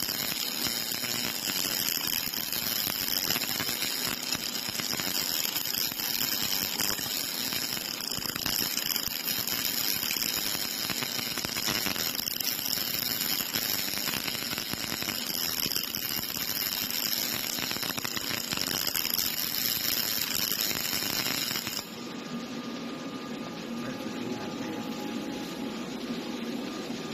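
Robot arm's MIG welding torch laying a vertical seam on steel box section, the arc giving a steady crackling sizzle with spatter. About 22 seconds in the arc cuts off suddenly, leaving a quieter steady machine hum.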